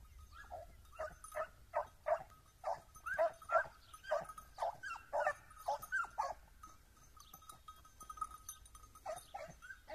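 Pack of hare hounds giving tongue, quick irregular yelps and bays as they run a hare's scent trail. The calls come thick through the first six seconds, fall off, then pick up again briefly near the end.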